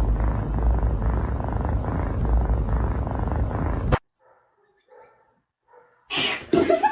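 Domestic cat purring loudly close to the microphone, a steady low rumble that cuts off abruptly about four seconds in. Near silence with a few faint small sounds follows, then another loud sound starts near the end.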